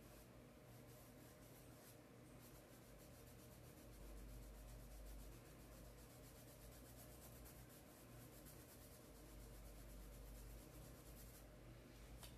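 Faint, soft scratching of a paintbrush working fabric paint onto black sackcloth, over a low steady hum.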